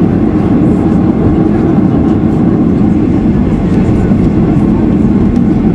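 Steady, loud rumble of a Boeing 737-800's CFM56 jet engines and airframe heard from inside the passenger cabin.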